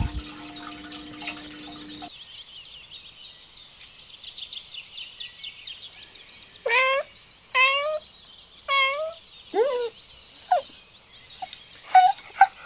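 Animal calls: four loud pitched cries about a second apart, each sweeping in pitch, followed by several shorter sharp calls, over a continuous rapid high chirping.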